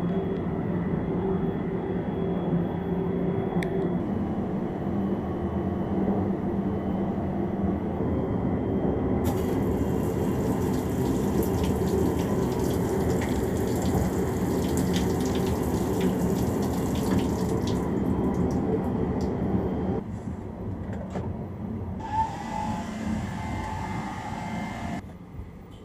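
Hand-held shower in a sleeper train's shower cubicle spraying water, a loud hiss that starts about a third of the way in and stops about ten seconds later. The train's steady running rumble goes on underneath throughout.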